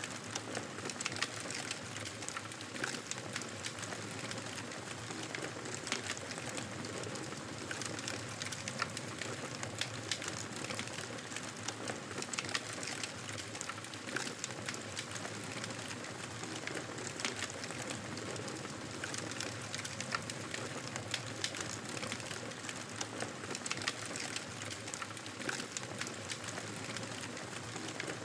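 Campfire burning steadily, with a constant hiss of flames and many small irregular crackles and pops from the burning wood.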